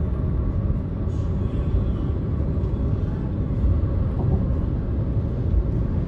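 Steady low rumble of a car driving at speed: tyre and wind noise with no rise or fall.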